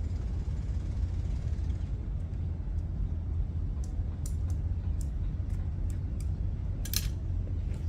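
A steady low rumble, with a few short sharp clicks in the second half, the loudest near the end.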